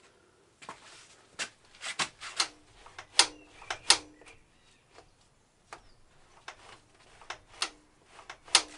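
Irregular sharp clicks and knocks, about fifteen over several seconds, from a motorcycle's right-hand throttle-side heated grip being twisted and worked on the handlebar after it has been glued on. Several clicks are followed by a brief low ringing.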